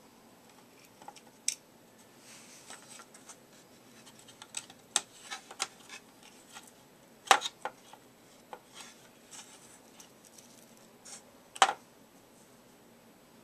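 Swivel Sweeper's plastic housing and parts being handled and pried apart while its small motor is lifted out: scattered clicks, scrapes and rubbing, with two sharper clacks about seven seconds in and near the end.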